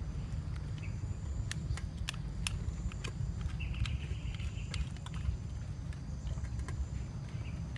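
Scattered sharp clicks and cracks of a small blade working on raw crab shells as the crabs are cleaned. A low steady rumble runs beneath.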